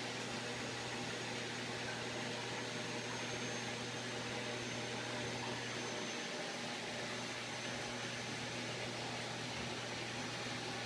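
Steady low hum with an even hiss over it from a large saltwater aquarium's running pumps and water circulation.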